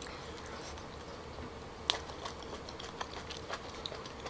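Faint scattered clicks and taps as boiled hairy ark clam shells and a spoon in a glass sauce bowl are handled, with one sharper click about two seconds in.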